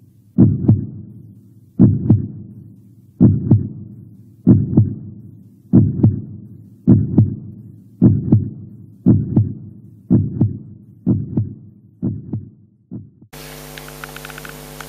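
Heartbeat beating in paired lub-dub thumps, which come a little faster and softer as it goes on. It stops about thirteen seconds in, giving way to a steady electrical hum.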